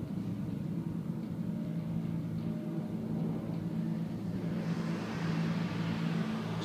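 A steady low drone of several held low tones, without a beat, like ambient soundtrack music; a faint hiss rises near the end.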